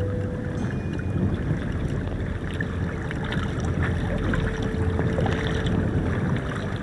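A small wooden outrigger boat under way on open water: a steady low rumble, with wind and water noise.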